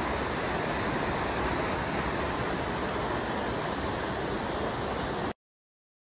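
Creek rapids rushing steadily over rocks, an even hiss of whitewater that cuts off suddenly about five seconds in.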